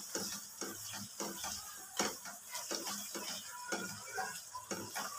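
A spatula stirring and scraping a thick onion-and-yogurt paste round a non-stick kadai in repeated strokes, over a soft sizzle of frying oil. The paste has cooked down until its water is gone and the oil is separating.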